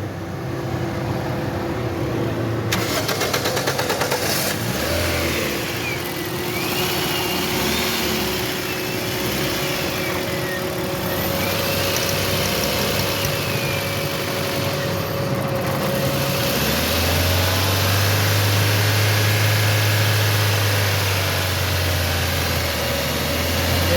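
Toyota Corolla GLI's petrol engine started and running, with the engine speed raised for a few seconds late on. It runs with a new ignition coil fitted, and its misfire is cured.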